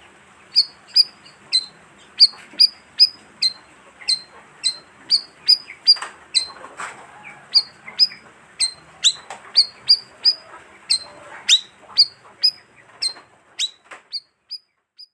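Bayeman bird lure call: short, sharp chirps repeated about twice a second, each dipping slightly in pitch, stopping shortly before the end.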